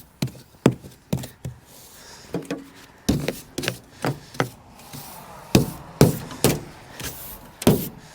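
A snow brush sweeping and knocking snow off the body of a 1980 Jeep Cherokee Chief: about a dozen sharp, irregular knocks and swishes.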